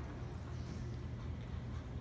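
Faint hoofbeats of a horse moving over arena dirt, under a steady low rumble.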